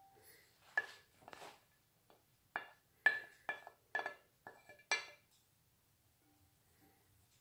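A wooden spoon knocks and scrapes against a ceramic plate and a glass mixing bowl, shaking shredded chicken off the plate. It makes a run of sharp, ringing clinks, about eight of them between one and five seconds in.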